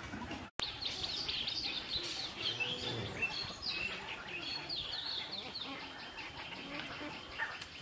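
Small birds chirping: many short, high calls overlapping throughout. The sound cuts out for an instant about half a second in.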